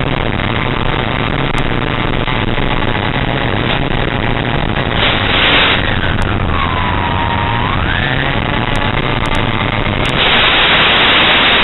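Brushless electric motor of a flying wing whining through heavy wind and static hiss; about halfway through its pitch drops and then climbs back as the throttle is eased off and opened again. Near the end the hiss gets louder.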